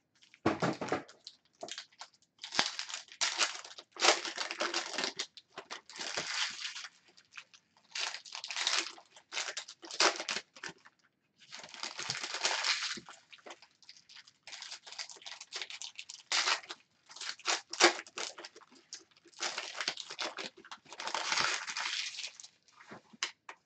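Foil trading-card pack wrappers crinkling and tearing in repeated bursts, each lasting up to about a second, as 2019 Chronicles baseball card packs are handled and ripped open.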